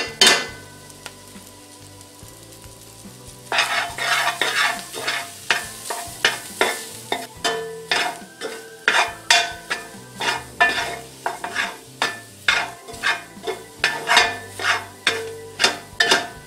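Metal spoon stirring and scraping pieces of roux through sizzling sautéed onions, celery and bell pepper in an aluminum pot. After a quieter stretch of sizzling, brisk scraping strokes start about three and a half seconds in and go on at about two a second, melting the roux into the vegetables.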